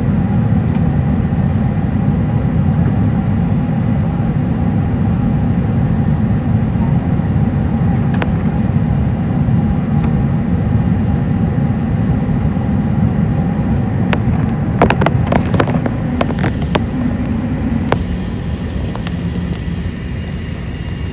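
Cabin noise inside a four-engined Airbus A380 on final approach: a steady low rumble of engines and airflow with a faint steady whine. About fifteen seconds in, a run of sharp knocks and rattles comes as the wheels touch down on the runway; the whine then stops and the rumble eases a little.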